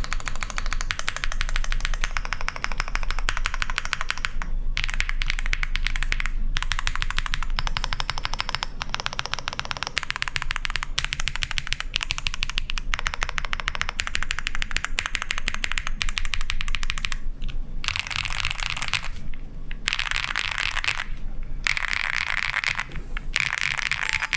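Fast typing on a custom mechanical keyboard, an Owlab Spring with Zaku switches, an FR4 plate and GMK Metropolis keycaps: a rapid, continuous run of keystrokes broken by brief pauses every few seconds.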